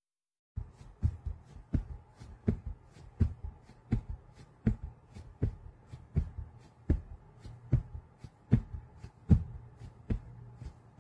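A hand patting a cat lying on a quilted bedspread: a steady run of soft pats, stronger ones about every three-quarters of a second with lighter ones between, starting about half a second in.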